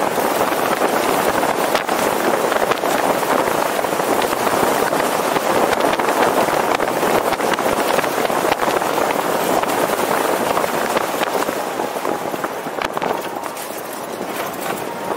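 A moving car, with steady rushing wind and road noise picked up by a camera mounted on the car's exterior.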